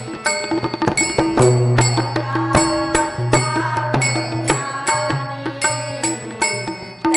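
Marathi devotional bhajan music: a harmonium plays a held melody over a steady low drone, and small brass hand cymbals (taal) strike a steady beat of about two to three clashes a second, with women's voices in the ensemble.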